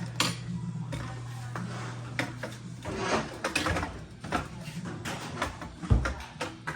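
Clicks, knocks and clatter of hands working at a front-loading washing machine, with a heavy thump near the end. A steady low hum runs underneath and cuts off about three seconds in.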